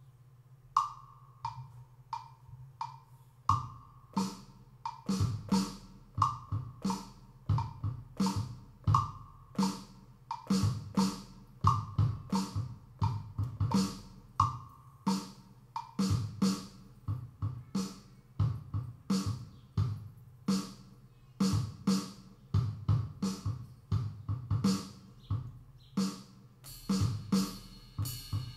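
Electronic music played live: a drum-machine beat with kick and snare hits under a short high synth note repeating about every two-thirds of a second. The beat comes in a few seconds in, and fast hi-hat ticks join near the end.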